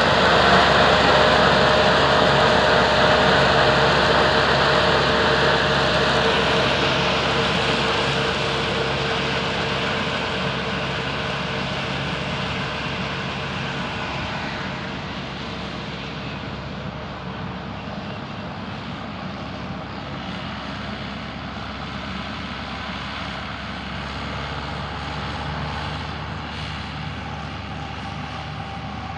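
Case 1490 tractor's four-cylinder diesel engine running steadily under load while its front and rear mowers cut grass. The sound fades over the first half as the tractor moves away, then holds steady at a lower level.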